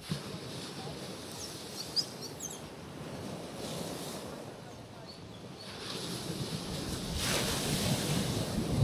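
Gentle sea waves washing onto a rocky shoreline: a steady surf hiss that swells louder in the second half as a wave rolls in and breaks.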